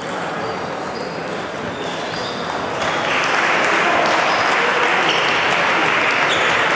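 Background chatter and the clicking of table tennis balls from other tables, then applause breaking out about three seconds in and going on, louder than the chatter.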